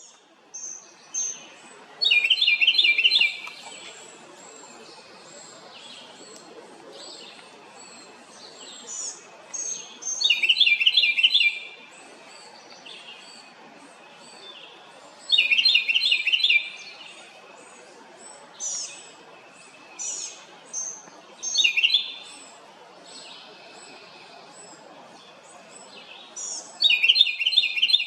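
A wren singing five loud phrases, each a rapid string of repeated notes lasting about a second, spaced five to six seconds apart. Softer high chirps from other birds fill the gaps.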